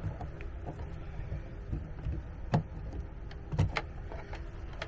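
Small clicks and knocks of a screwdriver and stiff wire being worked into a circuit breaker in an RV distribution panel, the sharpest coming at the start and twice after the halfway point, over a low steady hum.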